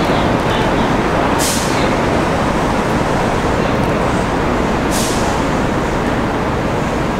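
Steady rumbling noise of an elevated subway line as a train approaches along the tracks, with two short sharp hisses, one about a second and a half in and one about five seconds in.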